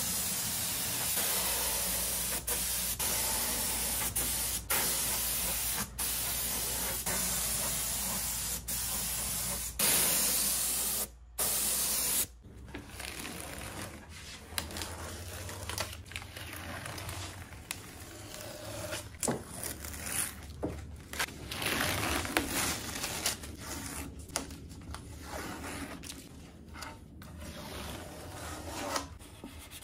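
Compressed-air spray gun with a gravity-feed cup spraying finish, a steady hiss broken by a few brief pauses of the trigger. About twelve seconds in it stops, and blue painter's tape is peeled off a wooden drawer front with quieter, uneven rustling and rubbing.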